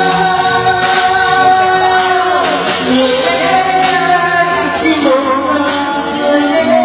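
A live vocal singing long, wavering held notes over loud backing music, through a poor-sounding sound system.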